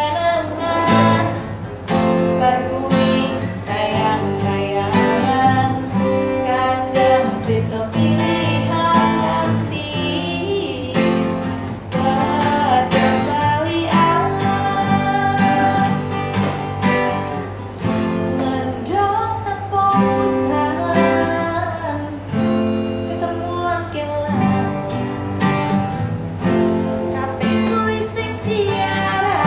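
Live music: strummed acoustic guitar with a kendang hand drum beating steadily under it, and a voice singing a Javanese song.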